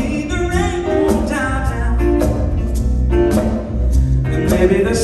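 A live acoustic band playing: two acoustic guitars under a sung lead melody.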